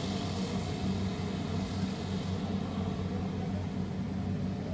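Kubota DC-70 rice combine harvester running steadily while cutting rice: a continuous diesel engine hum with a steady low drone.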